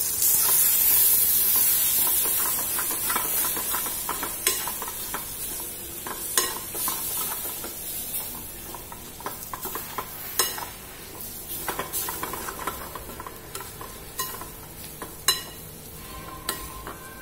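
Sweet-corn, jaggery, chana dal and coconut paste sizzling in ghee in a metal pan while a steel spoon stirs and scrapes it. The sizzle is loudest at first and fades, with sharp taps and scrapes of the spoon on the pan every second or two.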